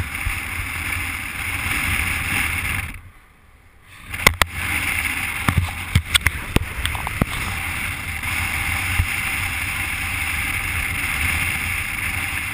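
Wind rushing over the microphone of a camera held out of a moving car's window, with road noise from the car underneath. The rush drops away for about a second a few seconds in, then several sharp knocks follow.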